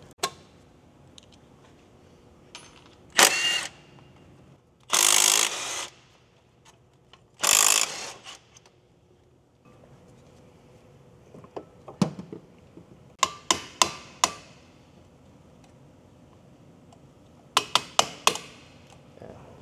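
Workshop tool sounds. First come three short loud bursts of a power tool. Then come scattered sharp metallic clicks, and near the end a quick run of hammer blows on a brake rotor hub.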